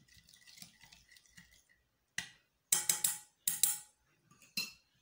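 A metal spoon stirring an oily spice marinade in a ceramic bowl: soft scraping at first, then about six sharp clinks of spoon on bowl, each with a short ring.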